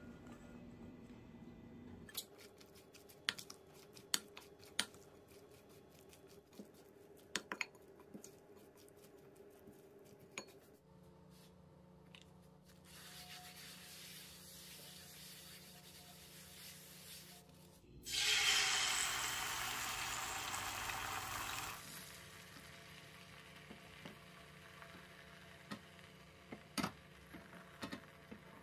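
A wooden spoon clicks and scrapes against a glass mixing bowl as the egg-roll fillings are stirred. About eighteen seconds in, a loud sizzling hiss lasting about four seconds, as the beaten egg goes into the hot oiled nonstick pan, followed by quieter cooking with a few clicks.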